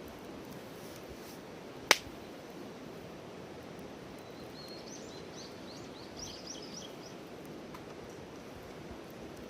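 Wood campfire giving one sharp, loud pop about two seconds in, over a steady low hiss. A small bird sings a quick run of short, high chirps in the middle.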